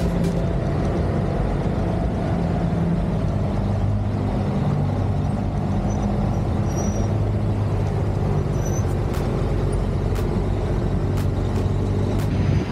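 Motor vehicle engines running steadily, a low drone whose pitch shifts a little, with a few sharp clicks in the second half.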